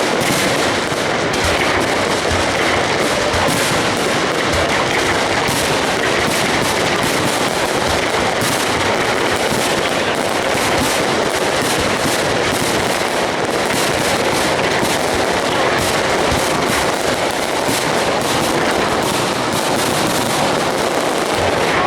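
Aerial fireworks display: a dense, unbroken run of bangs and crackling shell bursts.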